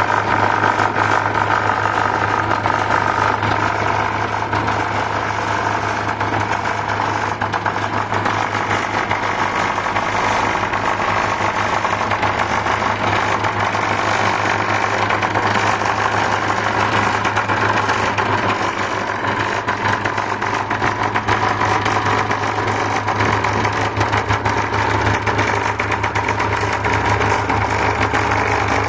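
An engine running steadily with a fast, even pulsing.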